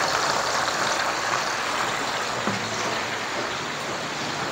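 Turmeric fish-head gravy simmering in a wok: a steady bubbling hiss.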